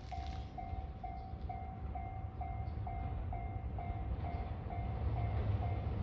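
Japanese railway level-crossing bell ringing, a steady electronic ding repeating about twice a second, warning of an approaching train. Under it, a low rumble grows louder toward the end as the train draws near.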